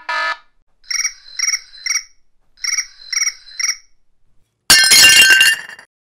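Cartoon sound effects: two sets of three quick, high chirps, then about five seconds in a loud, noisy burst lasting about a second.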